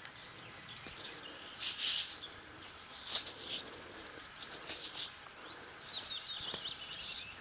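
Fingers rubbing damp soil off a silver pocket-watch case lid: a few short, scratchy rubs. Small birds chirp faintly in the background.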